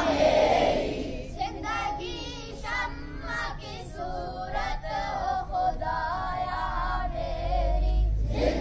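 Schoolboys reciting a dua aloud in a sing-song chant. Their voices come in together at the start, then the recitation carries on in a melodic, drawn-out line.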